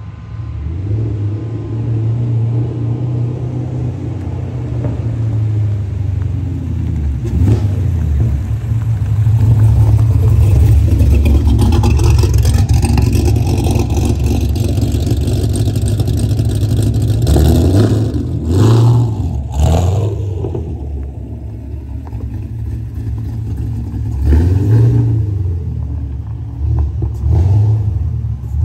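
Sixth-generation Chevrolet Camaro engine under throttle as the car drives off. Its note swells, then gives several short revs in the second half.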